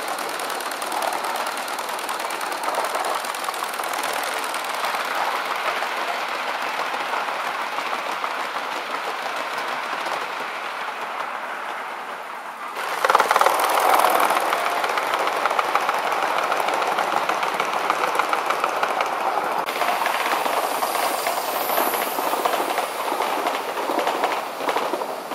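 Large-scale model trains rolling along metal track, their wheels clattering steadily over the rail joints. The clatter grows louder about halfway through.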